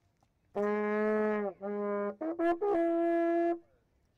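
Small hand-carved wooden fuhorn, a lip-blown wooden trumpet, sounding its first notes: a low note that sags in pitch at its end, a second short low note, a few quick stuttering blips, then a higher note held for about a second.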